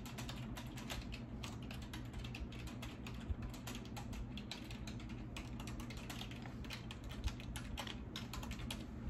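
Typing on a computer keyboard: a fast, even run of keystrokes, over a low steady hum.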